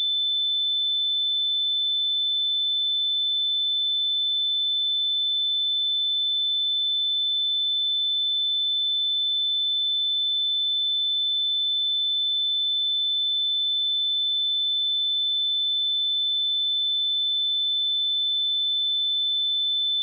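Pure 3522 Hz sine-wave test tone, one steady high-pitched tone held at a constant level.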